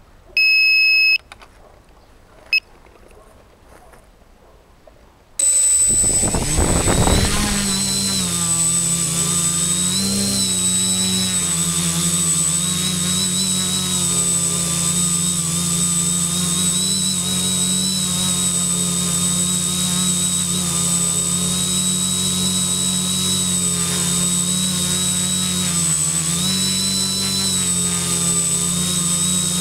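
The HobbyKing KK2 flight controller's buzzer gives one long beep and then a short one, and about five seconds in the quadcopter's brushless motors spin up suddenly, their pitch rising, then settle into a steady buzzing whine as it lifts off and hovers, dipping briefly in pitch a couple of times with throttle changes. Heard close up from the camera on the craft.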